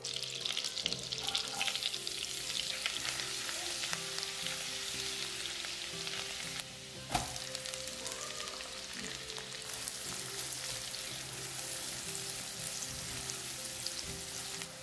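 Butter and olive oil sizzling in a hot nonstick pan, a steady crackling hiss. About seven seconds in the hiss dips briefly and there is a single knock, after which the sizzling goes on as diced onion fries, stirred with a spatula near the end.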